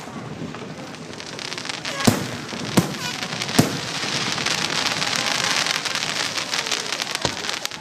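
Aerial fireworks: three sharp bangs of shells bursting about two, three and three and a half seconds in, then a dense crackling that swells and stays loud through the rest.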